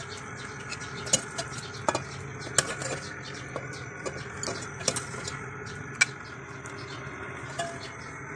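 Steel ladle scooping chicken curry out of an aluminium cooking pot into a serving dish, scraping and clinking against the metal, with a handful of sharp clinks.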